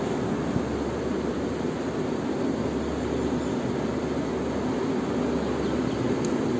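Steady low rushing roar of tram-station ambience picked up on a phone microphone, with one faint click near the end.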